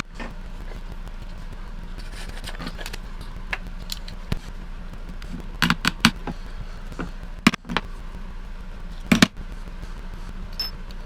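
Sharp clicks and knocks of hard objects being handled, three in quick succession about halfway through and single ones a little later, over a steady low hum.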